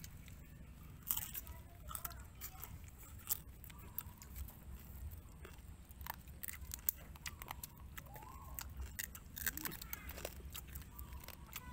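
Cooked crab shells crunching between the teeth as a person chews, an irregular run of sharp cracking clicks.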